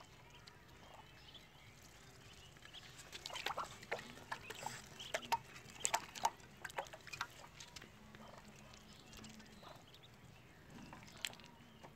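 Muscovy ducklings feeding at a plate of wheat bran: faint, scattered short peeps and pecking clicks, thickest in the middle few seconds.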